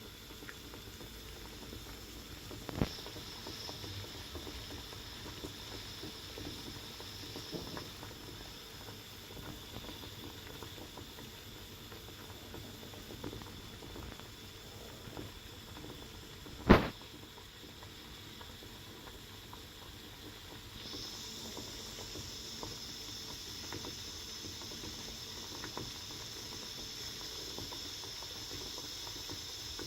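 Water boiling, a steady bubbling with many small pops and crackles. There are two sharp knocks, a light one early and a louder one a little past halfway. A high hiss comes up slightly stronger in the last third.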